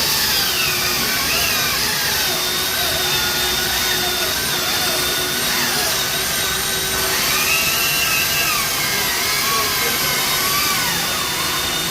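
Cordless electric chainsaws running hard, likely cutting wood: a steady high motor-and-chain whine whose pitch dips and recovers again and again as the load changes.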